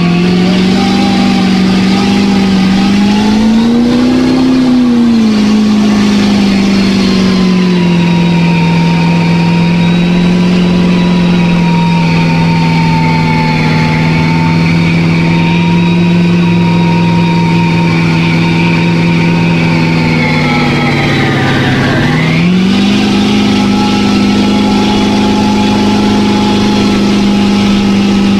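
Mud bogging mega truck's engine held at high, steady revs as the truck churns through deep mud on tractor tires. The engine note swells briefly about four seconds in, then sags sharply near the end and climbs back up.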